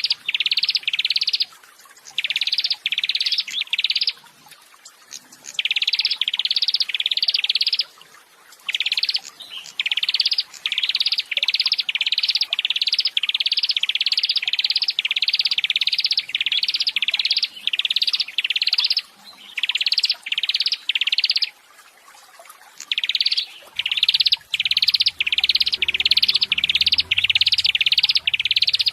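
A songbird calling a short, high note over and over, about three notes a second, in long runs broken by brief pauses.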